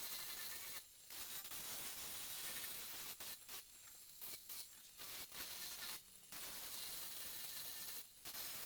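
Merlin2 mini angle grinder with a sanding disc abrading wood: a steady scratchy hiss that breaks off briefly several times as the disc lifts from the surface.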